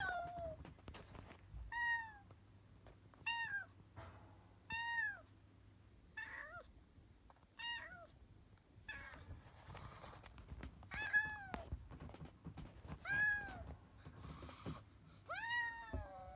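Black kitten meowing over and over, about ten cries, each one falling in pitch, with a few short hisses between them: the distress calls of a kitten frightened of people.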